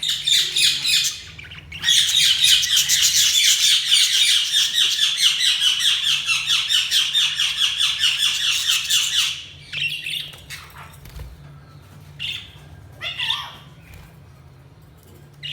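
Budgerigars chattering: a short burst of calls, then a long run of rapid, harsh chirps repeated many times a second for about seven seconds, followed by a few scattered single calls.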